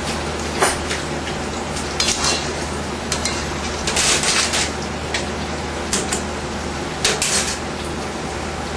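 Kitchen utensils clattering and scraping against a board or dish: several short, sharp knocks, busiest in the middle and again near the end, over a steady low hum.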